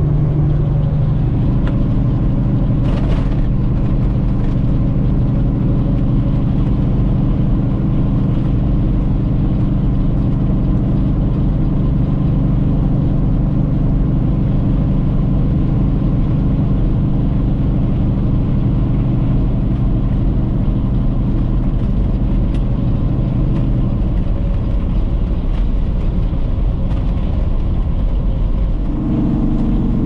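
Semi truck's diesel engine running steadily while driving, a constant drone. The engine note falls away about 24 seconds in and a different, higher note comes in near the end.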